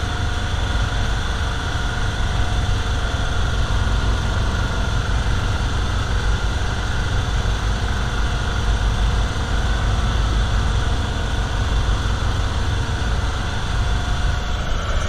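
Boat engine running steadily at idle: a constant low rumble with a steady hum on top.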